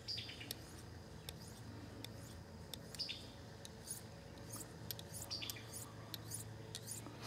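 A small folding knife's blade stroked along a polished steel shock-absorber shaft used as a honing steel, honing the edge to a fine finish. It makes a series of light, quick, high-pitched scrapes, a few a second, at an uneven pace.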